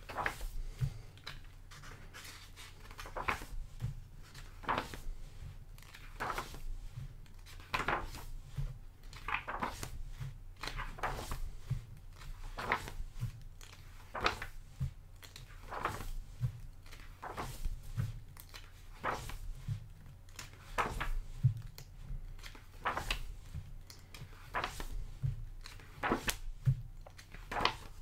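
Pages of a large hardcover art book being turned one after another, each turn a short papery swish, about one a second. A faint steady low hum lies underneath.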